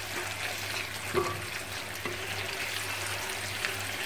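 Thick curry gravy sizzling in a frying pan as a wooden spatula stirs and scrapes through it, with one light knock of the spatula about a second in, over a low steady hum. The gravy is being cooked down until the ghee separates.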